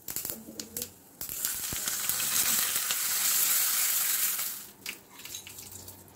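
A tadka for dhokla: mustard and sesame seeds crackling in hot oil in a small steel pan. About a second in, green chillies and curry leaves go in and a loud, dense sizzle runs for roughly three and a half seconds. It then falls back to scattered pops.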